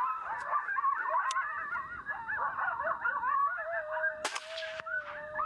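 A chorus of coyote yips and howls: many quick, wavering yelps overlapping, with one long, even howl held through the second half, and a single sharp click a little after four seconds.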